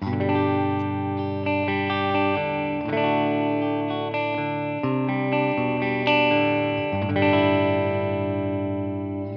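Fender Jazzmaster Modern Player electric guitar with humbuckers, played clean through a simulated Fender Princeton Reverb amp: sustained chords ringing out, changing every second or so.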